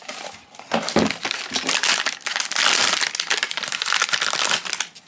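Silver foil blind bag crinkling loudly as it is handled and worked open by hand.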